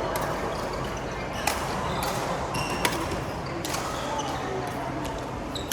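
Badminton rackets hitting a shuttlecock in a rally: a series of sharp smacks roughly a second apart, in a large echoing hall.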